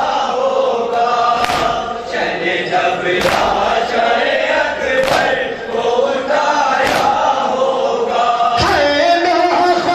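Men's voices chanting a noha in unison, broken by a sharp collective chest-beat (matam) about every two seconds, five strikes in all.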